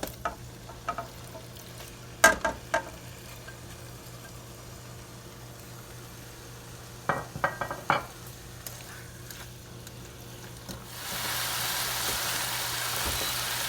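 A few clicks and knocks of a utensil against a pan, then, about three-quarters of the way through, a loud steady sizzle starts as marinated chicken pieces hit hot butter in the pan.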